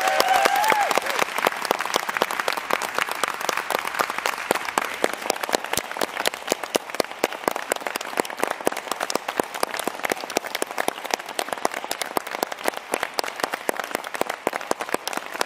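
Concert audience applauding, with a brief voice cheering at the start; the clapping eases off a little over the first few seconds and then keeps on steadily.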